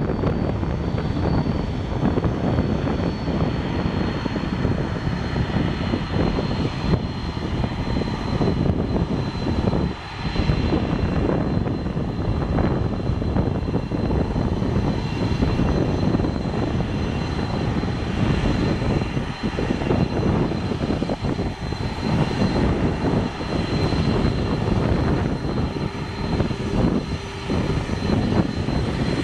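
Boeing 747-400 jet engines running as the four-engined airliner rolls along the runway: a steady loud rumble with a thin high whine over it.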